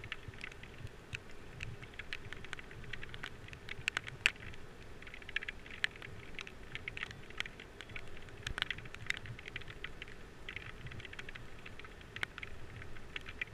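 Rain pattering on an action camera's housing: irregular light ticks and taps, a few sharper than the rest.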